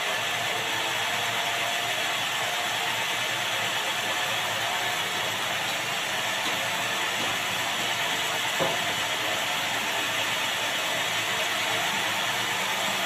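Large sawmill band saw running steadily while meranti timber is fed through the blade on the roller carriage, a dense mechanical whir and rasp, with a single knock about two-thirds of the way through.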